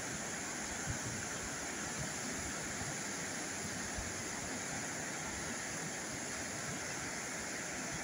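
Steady rushing of a river in flood: a strong current of muddy water churning through rapids.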